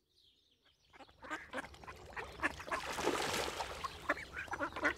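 A group of ducks quacking, many short calls overlapping, starting about a second in.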